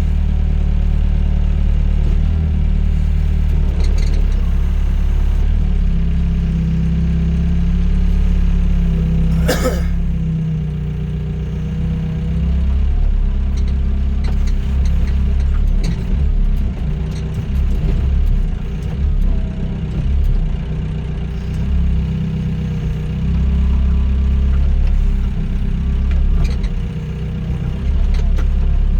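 Doosan DX55 mini excavator's diesel engine running steadily, its note shifting up and down as it works, with a single sharp knock about ten seconds in.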